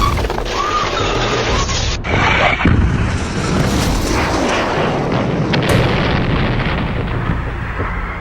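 Deep, sustained rumbling boom of a plane crash explosion and the fire after it. The sound changes abruptly about two seconds in and again a little later, as if cut between recordings.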